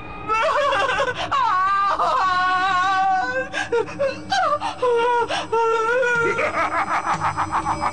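A cartoon witch's voice wailing and whimpering in drawn-out cries of distress. Background music comes in near the end.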